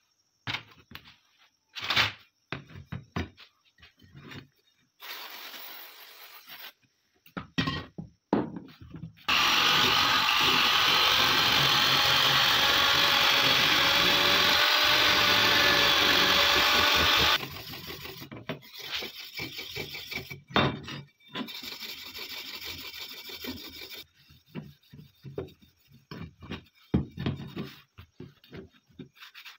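Clicks and knocks from metal rifle parts being handled, then an electric drill runs steadily for about eight seconds, its spinning attachment scouring rust off a steel AK-47 part. After it stops comes scraping and cloth rubbing on the metal.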